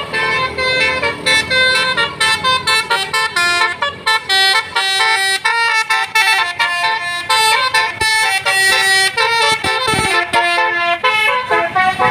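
Tour bus's multi-tone 'basuri' musical air horn playing a fast melody of short, rapidly changing notes in the angklung style ('mengangklung').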